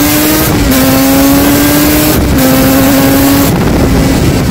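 Motorcycle engine accelerating hard through the gears. Its pitch climbs steadily, and it dips three times as the rider shifts up: about half a second in, about two seconds in, and near three and a half seconds.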